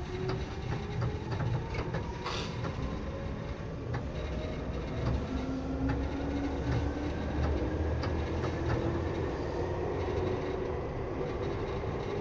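Seibu 2000 series electric train running, heard from inside the car: a low rumble with a faint motor whine that rises slowly in pitch as the train gathers speed, and scattered clicks from the wheels over the rails.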